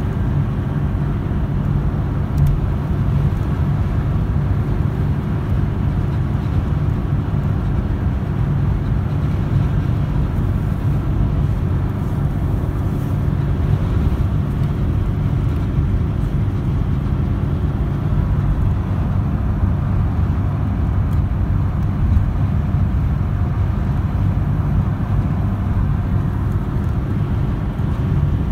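Jaguar XJS cruising at steady highway speed, heard from inside the cabin: a steady low drone of engine and road noise.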